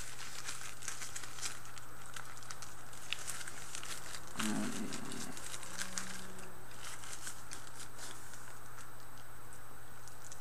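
Paper sandwich wrapper crinkling in the hands in quick light crackles, with chewing. There is a brief low hum from the mouth about four and a half seconds in.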